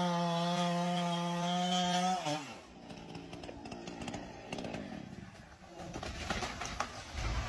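Chainsaw running at a steady high speed, its pitch sliding down as it winds down about two seconds in; after that, only faint scattered clicks and rustling.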